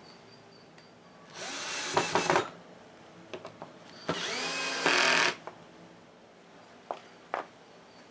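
Handheld power drill run in two short bursts of about a second each, its motor whine rising in pitch as it spins up each time. Two sharp clicks follow near the end.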